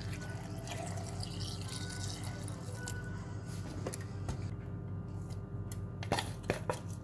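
Milk poured into a stainless steel mixer jar over avocado pieces, a splashing, trickling liquid sound in the first couple of seconds, over quiet background music. Two sharp clicks near the end.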